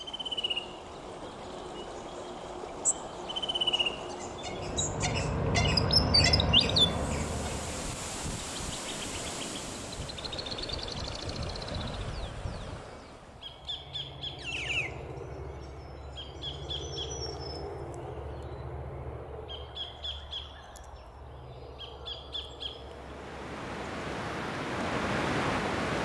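A run of different wild birds calling. First a fan-tailed cuckoo's falling trill, then mixed bird calls, then a sacred kingfisher's groups of quick repeated notes. Near the end, the hiss of surf rises.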